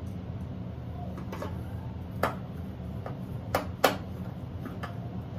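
Sharp clicks and taps of the metal access cover being fitted back onto a Rheem electric water heater, three of them about two, three and a half and four seconds in, over a steady low hum.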